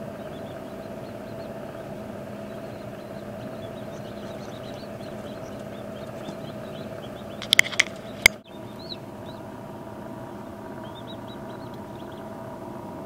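Newly hatched chicks peeping faintly in short high notes over a steady hum, with a few sharp clicks about seven and a half to eight seconds in.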